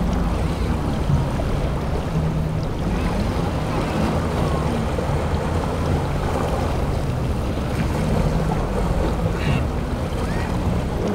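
Boat engines running through choppy inlet water, with waves and wind buffeting the microphone in a steady low rumble.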